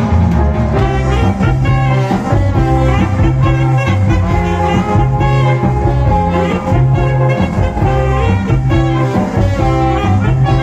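Cha-cha dance music with a heavy bass line in short, repeated notes, played loud over a mobile sound system.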